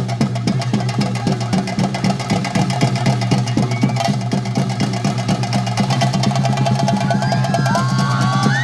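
Chenda drums of theyyam accompaniment beating a fast, dense rhythm over a steady low drone; high wavering tones come in near the end.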